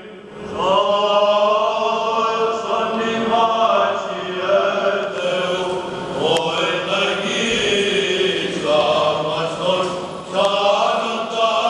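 Greek Orthodox Byzantine chant: voices singing slow, drawn-out melismatic lines over a steady low held drone (ison), starting about half a second in.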